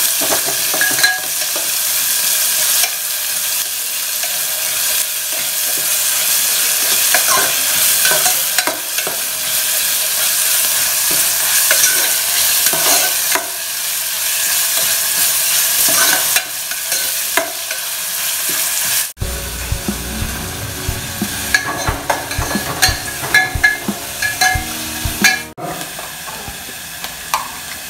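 Sliced onion sizzling as it fries in hot oil in a metal pot, with a metal spoon scraping and clinking against the pot as it is stirred. The sound cuts off for an instant twice in the latter part.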